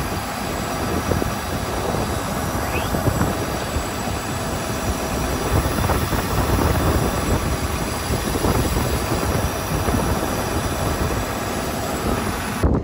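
Farm tractor running and rattling as it drives over a field: a loud, steady rumble full of clatter, cut off abruptly near the end.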